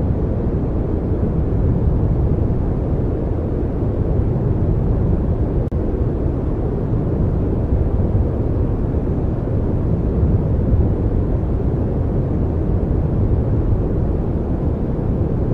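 Steady, deep rushing noise from a continuous noise track for studying, heaviest in the low end and fading toward the highs. It has a brief dip in level about five and a half seconds in.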